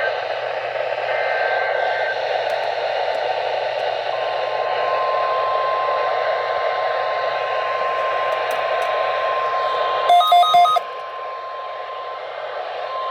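Weather radio receiver hissing with static, with two faint bursts of warbling SAME data tones near the start. A steady NOAA Weather Radio warning alarm tone sounds from about four seconds in until near the end, with a short burst of loud beeps over it about ten seconds in.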